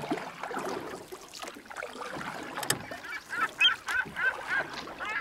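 Geese honking: a quick run of repeated calls in the second half, after a stretch of mixed noise with a few knocks.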